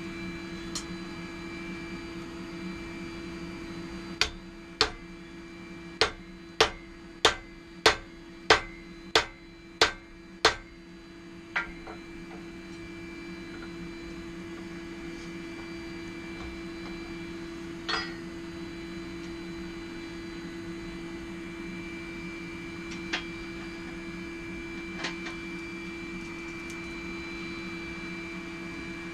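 Hand hammer striking a hot steel axe head on an anvil: a run of about eleven sharp blows at a steady pace of a bit under two a second, then a few lone knocks later on. A steady hum from the forge runs underneath.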